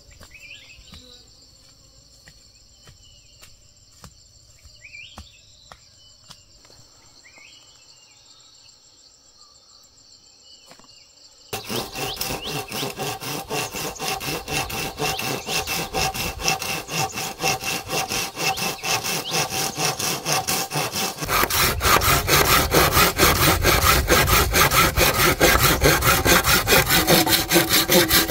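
Insects trilling steadily. About halfway through, a hand saw starts cutting wood in quick, even back-and-forth strokes, which grow louder in the last third.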